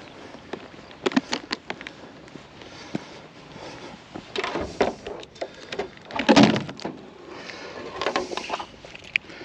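Scattered clicks, knocks and rustling of things being handled, with a louder knock about six seconds in.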